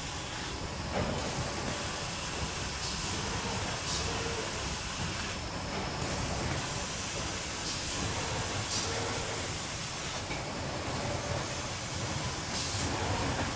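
Automated paper-board processing machinery running steadily with a constant hiss, punctuated every second or two by short hisses of compressed air from its pneumatic sheet feeder.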